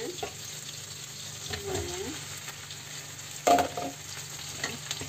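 Pre-boiled pork rib pieces going into a hot steel wok of oil with ginger, shallots, garlic and chillies, sizzling steadily as a wooden spatula stirs. A sharp knock about three and a half seconds in is the loudest sound, as the meat lands in the wok.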